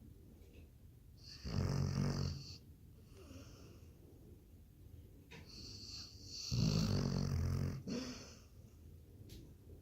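Labrador dog snoring in its sleep: two loud snores about five seconds apart, with quieter breathing between.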